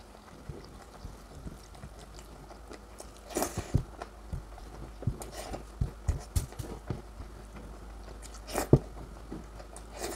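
A person eating and chewing, with scattered short wet clicks and smacks from the mouth. There is a louder cluster about three and a half seconds in and another near the end.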